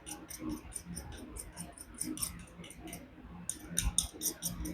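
Knife blade being drawn in quick short strokes across the corner of a tungsten sharpening bar: a rapid, even series of light scraping ticks, about five a second, with a brief pause a little past halfway. The blade is hard steel.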